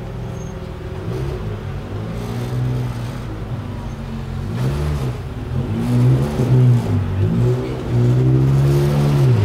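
Maserati MC12 Corsa's 6.0-litre V12 running, steady at first and then revved several times, the pitch rising and falling in blips and held up near the end, louder in the second half.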